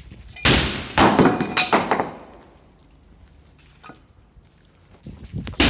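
Loud smashing crashes, with glass breaking: one hit about half a second in, then a longer shattering crash over the next second that fades out, and another hard hit near the end.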